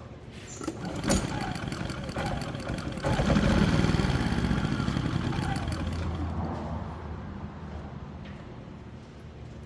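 Predator 3500 generator's 212cc single-cylinder engine starting up, its revs swelling about three seconds in, then sagging and fading away within a few seconds, consistent with an engine that will not keep running off choke.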